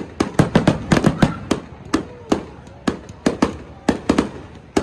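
Fireworks going off: a rapid, irregular string of sharp bangs, crowded together in the first second and a half and then more spread out.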